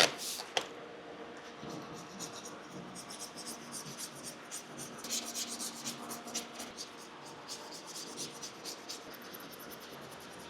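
Razor scraper blade scraping leftover window-tint adhesive off car window glass in quick, short, repeated strokes.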